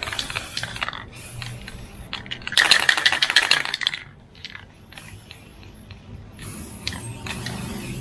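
A can of flat black aerosol spray paint in use: its mixing ball rattles as it is shaken, along with hissing bursts of spray. The loudest stretch lasts about a second, starting between two and three seconds in.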